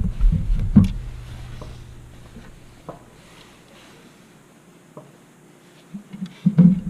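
Handling noises on a workbench: a few low knocks and a sharp click in the first second, then faint occasional ticks, with more knocks near the end.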